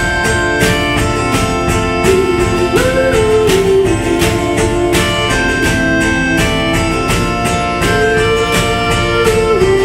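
Instrumental break: acoustic guitar strummed in a steady rhythm under a sustained melody from a melodica, blown through its mouth tube, its held notes sliding up and down in pitch in places.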